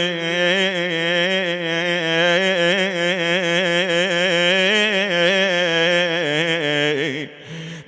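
A man's voice holding one long, wavering sung note of an Iraqi Shia lament (nā'ī), fading out about seven seconds in.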